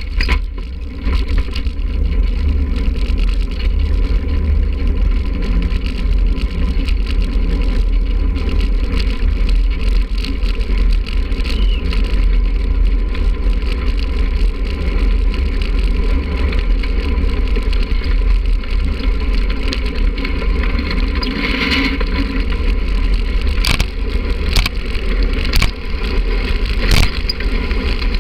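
Wind buffeting the onboard microphone and the rolling rumble of an engineless soapbox cart's wheels on the asphalt as it coasts downhill. It is a steady, loud rumble, with a few sharp knocks near the end.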